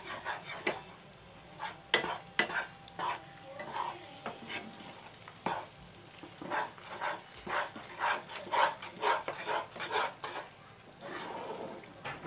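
A spatula repeatedly stirring and scraping a thick gram-flour and ghee mixture around a pan, in irregular strokes, with a light sizzle from the hot ghee as the Mysore pak mixture is roasted.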